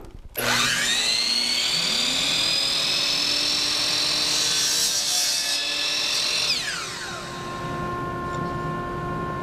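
Ridgid sliding compound miter saw starting up with a rising whine, then running at speed as the blade cuts through a wooden rod. About six and a half seconds in, the motor is switched off and the blade winds down with a falling whine.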